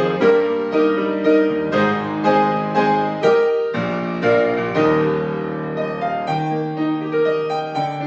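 Solo piano playing a hymn in full chords, new notes struck about twice a second with the sustained notes ringing under them.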